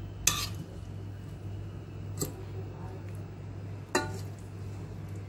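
Three sharp clinks of a kitchen utensil against a dish, about two seconds apart, as sausage topping is spooned onto a pizza, over a steady low hum.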